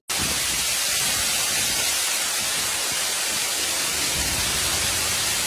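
Heavy downpour: a dense, steady hiss of rain or hail pelting down, even throughout, starting abruptly at a cut.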